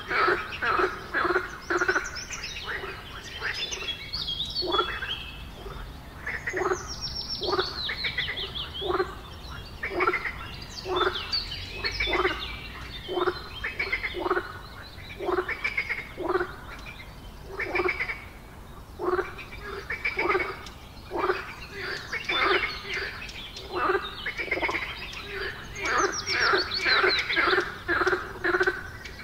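Frogs croaking in a chorus: short croaks repeated several times a second in bursts, with a few higher falling chirps mixed in.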